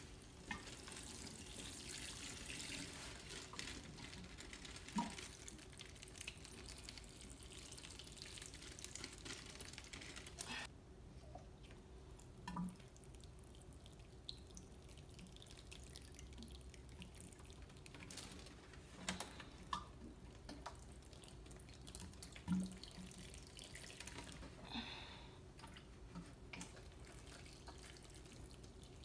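Water sprinkling from a green plastic watering can's rose onto potting soil in grow bags, a faint splashing hiss that is strongest over the first ten seconds or so and then fainter. The pots are being deep-watered, until the water runs out from under them. A few soft knocks come in between.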